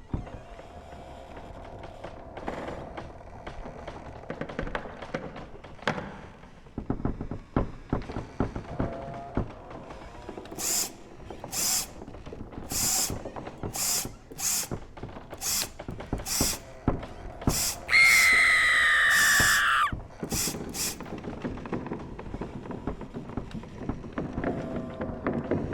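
Spooky sound-effect collage of creaks and thunks. In the middle comes a series of short hissing strokes about one a second, and in their midst a loud, high-pitched sound that falls slightly in pitch over about two seconds.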